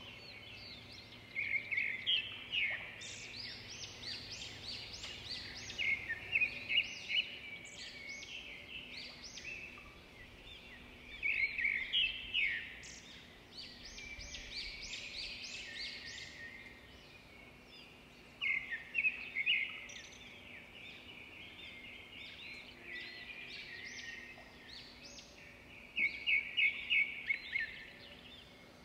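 Small songbirds chirping and singing in a steady stream of quick, high notes, with louder trilled phrases every few seconds.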